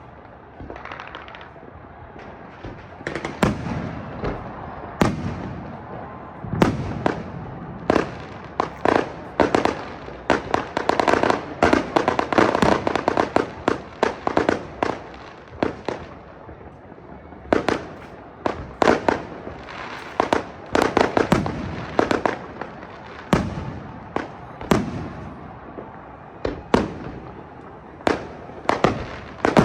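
Fireworks going off in rapid, irregular succession: many sharp bangs and pops over a continuous crackle, thickest in the middle and with a short lull about three quarters of the way through.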